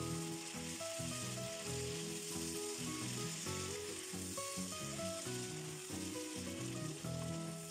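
Chopped vegetables sizzling in hot oil in a frying pan as they are stirred with a spatula, stewing over medium heat, with background music.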